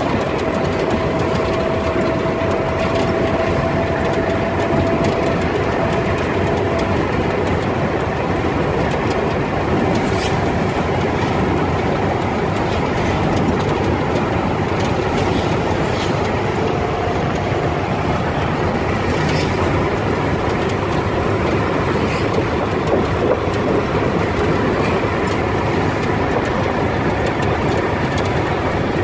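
Steady road and engine noise heard inside the cabin of a moving vehicle, with a few light knocks and rattles.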